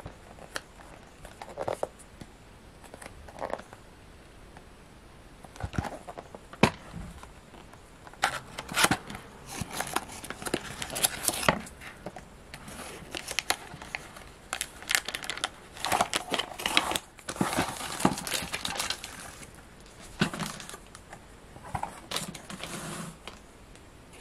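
Cardboard toy box being handled and opened, then the toy train's plastic bag crinkling as it is pulled out. A few scattered clicks and rustles at first, then denser crinkling through the middle.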